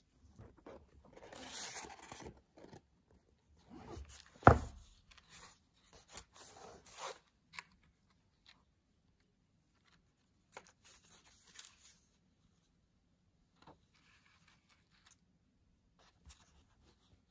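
Paper pages of a hardcover book being handled and turned: rustling and sliding in several short spells, with one sharp thump about four and a half seconds in, the loudest sound.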